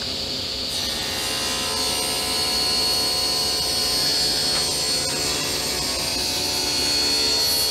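Table saw running with a steady high whine, its blade cutting through a hardwood blank with a hissing rasp from about a second in.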